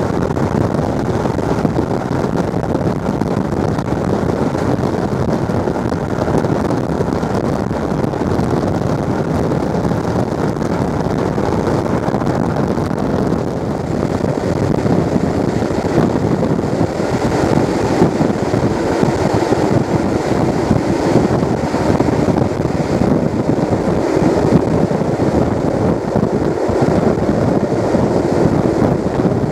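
Steady rush of a steam-hauled passenger train's coaches running along the line, with wind noise on the microphone; it grows a little louder about halfway through.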